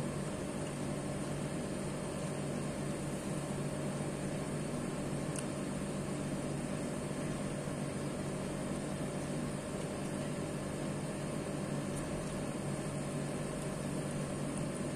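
Steady machine hum with an even hiss and a constant high whine, from a running electric motor such as a fan, with a couple of faint ticks.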